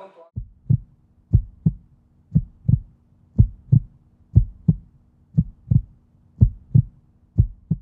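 Heartbeat sound effect: paired low thuds, lub-dub, about one pair a second, eight pairs in all, over a faint steady hum.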